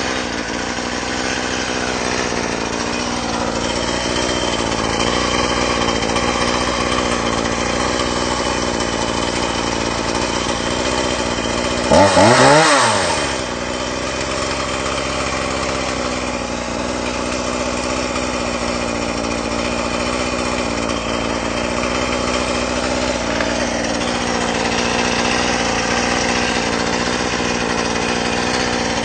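Chainsaw engine idling steadily, revved once briefly about twelve seconds in, its pitch climbing sharply and dropping back to idle.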